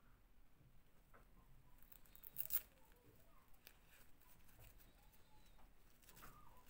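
Faint rustling and small clicks of hands handling a plastic fashion doll and pulling its fabric top off, with a brief louder rustle about two and a half seconds in and another near the end.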